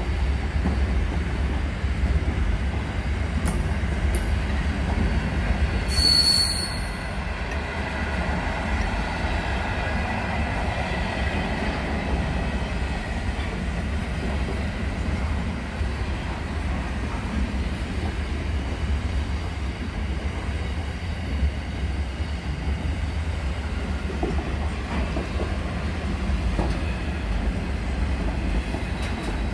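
Container freight train rolling past: a steady low rumble of wagons on rail, with a brief high-pitched wheel squeal about six seconds in.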